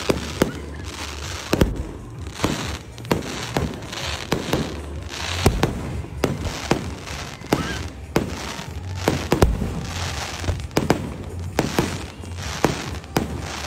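Aerial fireworks shells bursting overhead in a long run of sharp bangs at an uneven pace, with a few heavier, deeper booms among them.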